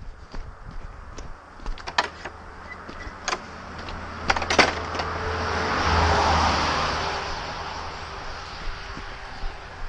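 A car passing on the road alongside, its tyre and engine noise swelling to a peak about six seconds in and then fading away. A few sharp clicks come before it, in the first half.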